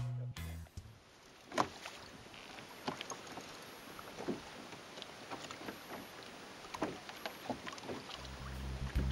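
Water slapping and lapping against a kayak's hull, with scattered sharp splashes at irregular intervals over a low wash. Background music cuts out just under a second in and comes back near the end.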